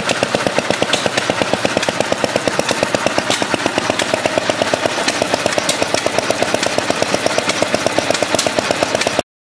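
Rider-Ericsson hot-air pumping engine running, a fast, even mechanical clatter that cuts off abruptly near the end.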